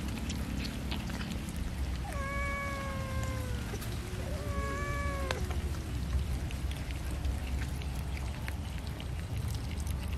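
A cat meows twice, two drawn-out meows that sag slightly in pitch, the first about two seconds in and the second shortly after. Small scattered clicks of cats chewing raw fish run underneath.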